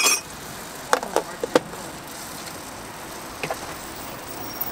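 Sharp clicks and clinks of a metal spoon and utensils being handled at a crepe griddle: a loud one at the start, a quick cluster of four about a second in, and one more later. Under them is a steady hum of street background noise.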